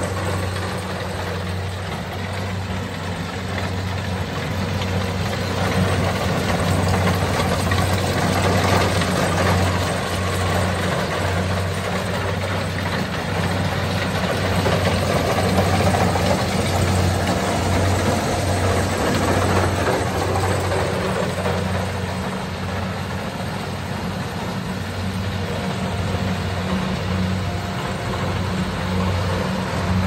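Kubota crawler combine harvester running steadily under load while it cuts and threshes rice. A low diesel hum sits under the even clatter and rush of the cutting header and threshing machinery, louder in the middle as the machine passes close.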